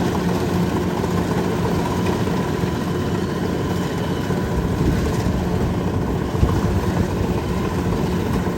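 Kubota DC93 combine harvester's diesel engine running steadily, with an even mechanical hum.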